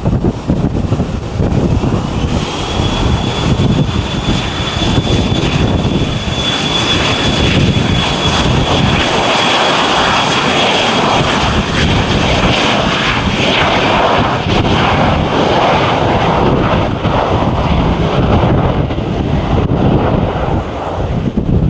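Jet aircraft engines running loud as a plane passes, a deep rumble throughout. A high whine rises about two seconds in, holds steady, and fades out a little past the halfway point.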